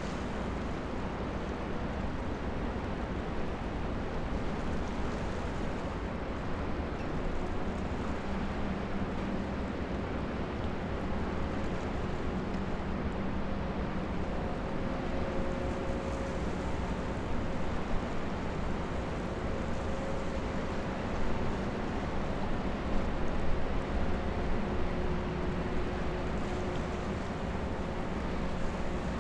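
Steady low engine rumble of a passing ultra-large container ship and its escort tug, with a faint hum, mixed with wind on the microphone and water noise.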